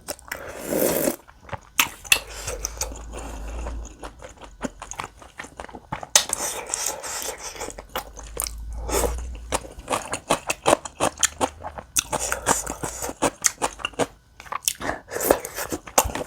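Close-up chewing of spicy tteokbokki rice cakes and beef intestine, with many short, wet mouth clicks.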